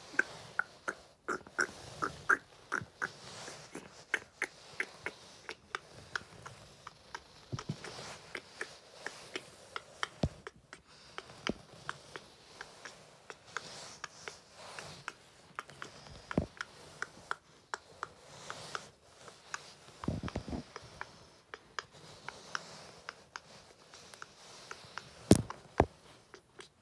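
Uneven run of quick clip-clop clicks, about two or three a second, standing in for the hoofbeats of toy horses walking, with one sharper, louder click near the end.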